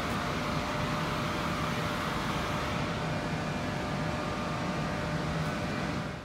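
Steady mechanical hum and hiss of a train maintenance shed, with a faint steady tone running through it.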